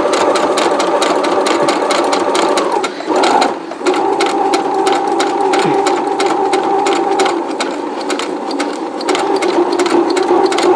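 Brother CE8080PRW computerized sewing machine stitching through heavy-duty denim at a felled-seam hem: a steady motor whine with the needle's rapid, regular stroke. It breaks off briefly about three seconds in, then runs on at a slightly different pitch.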